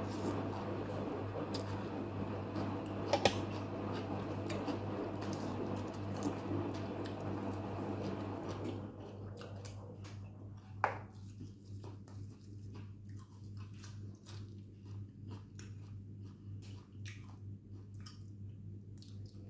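Close wet slurping and chewing of thick noodles in spicy papaya salad. The noise is dense for about the first nine seconds, then thins to scattered mouth clicks while she chews, with one sharp click about eleven seconds in. A steady low hum runs underneath.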